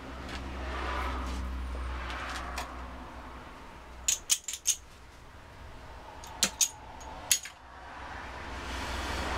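Small metal objects clicking and clinking in two quick clusters, about four sharp clicks near the middle and three more a couple of seconds later, over a steady low rumble.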